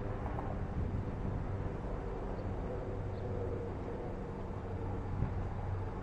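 Steady outdoor noise of strong wind mixed with the hum of road traffic.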